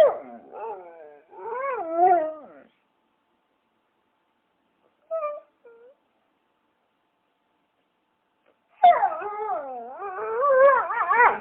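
A dog whining and howling in wavering tones that slide up and down in pitch: a stretch at the start, a short whimper in the middle, and a longer, louder howl near the end.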